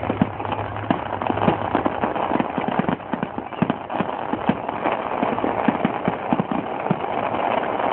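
Firecrackers popping, many short irregular pops over a steady noisy background.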